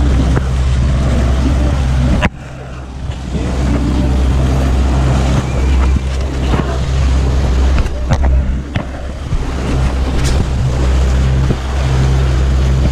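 Mercury outboard motor running steadily, with churning wake water and wind on the microphone. A few sharp knocks come over it in the second half.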